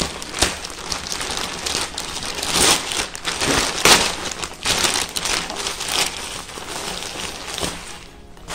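Plastic mail bag and plastic-wrapped clothing crinkling and rustling as the package is opened by hand. It comes in irregular bursts, loudest about three to four seconds in.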